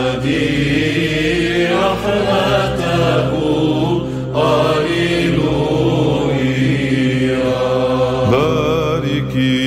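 Byzantine chant sung in Arabic: a slow, melismatic vocal line that bends and ornaments its pitch over a steady held low drone, the ison.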